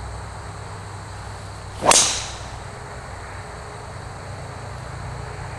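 A golf tee shot: a single swish of the club and the crack of the clubhead striking the ball, about two seconds in.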